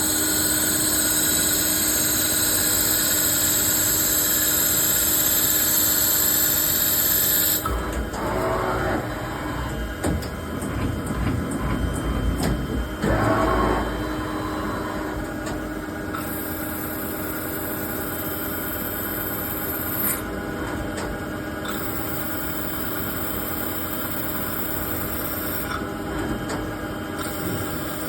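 CNC lathe turning a cast nylon (kestamid) workpiece, running steadily. A high whine cuts out after about seven seconds and comes back in spells later. A rougher, noisier stretch with a low rumble comes in the middle.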